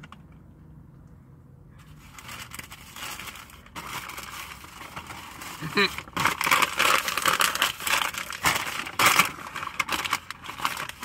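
Paper takeout bag rustling and crinkling as it is handled, starting about two seconds in and getting louder, with a dense run of sharp crackles in the second half.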